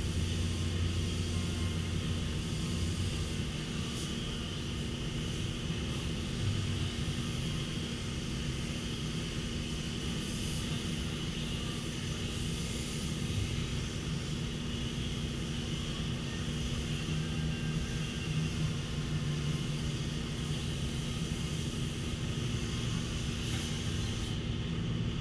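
Steady mechanical drone, an engine or motor running at a constant speed without rising or falling.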